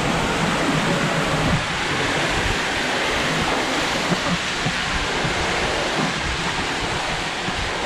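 Waterfall water rushing steadily.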